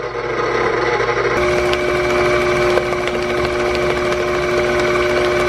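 Electric mixer running in apple bread batter, stirring in the milk. Its motor hum shifts about a second and a half in, then holds a steady pitch.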